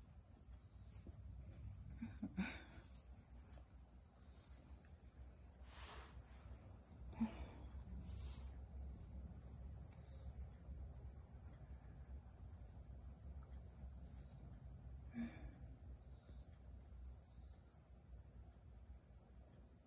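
Steady high-pitched insect chorus shrilling without a break, over a low steady hum. A few brief soft sounds break in, the clearest about seven seconds in.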